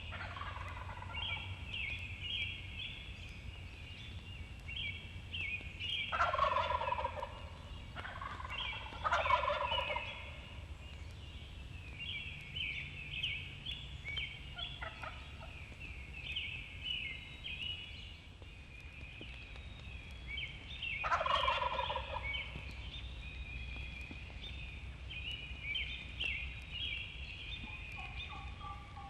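Wild turkey gobbling: three loud rattling gobbles about six, nine and twenty-one seconds in, with a fainter one between. Small birds chirp throughout.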